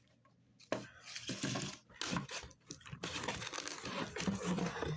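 Packaging being torn open and crinkled by hand: a run of ripping, rustling noises that starts about a second in and keeps going.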